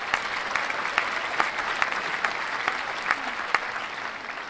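A small group applauding: many hand claps over a steady clatter, tailing off near the end.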